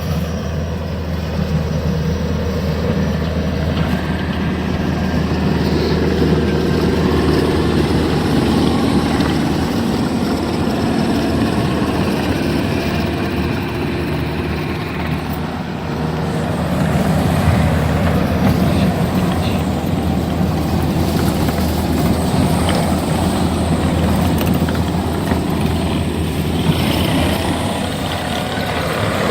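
Skid steer engine running steadily at working speed while it drives a scraper attachment, easing off briefly about halfway through and then picking back up.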